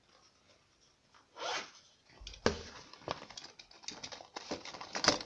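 Packaging of a model kit's decal sheet being torn open and crinkled by hand. A soft rustle comes about a second and a half in, then a dense run of sharp crackles and snaps, loudest just before the end.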